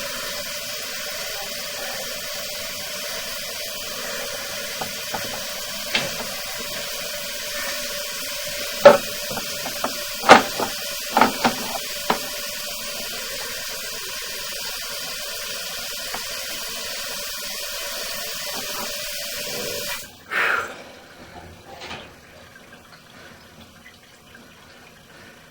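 Water running steadily, with several sharp knocks, cutting off abruptly about twenty seconds in.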